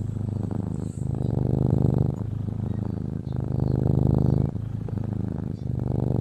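A sleeping domestic cat purring, a rumble that swells and eases with each breath, about every two seconds.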